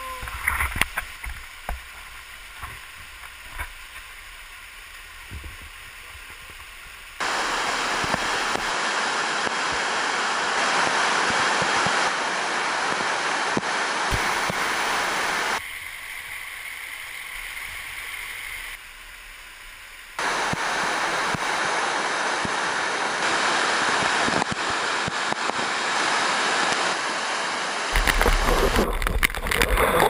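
Waterfall water rushing over rock as a steady hiss, its level jumping abruptly up and down several times. A few sharp knocks in the first couple of seconds, and a ragged rumble on the microphone near the end.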